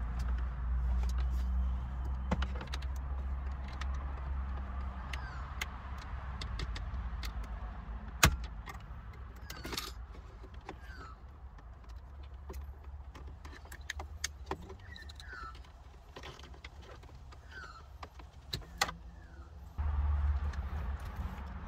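Plastic dashboard trim of an EK Honda Civic being pried at with a plastic pry tool: scattered clicks and scrapes of plastic on plastic, the sharpest snap about eight seconds in, over a steady low rumble.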